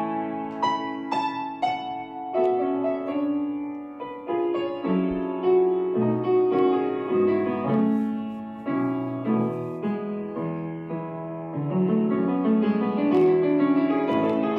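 Solo piano music: melody notes over chords, each note struck and fading.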